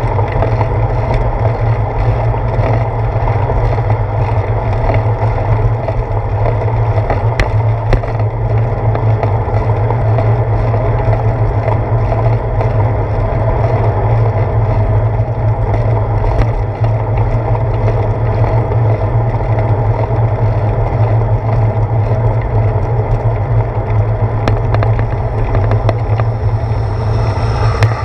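A bicycle rolling on pavement, heard through a seat-post-mounted camera: a steady, loud low rumble of wind and road vibration, with a few small knocks from bumps in the road.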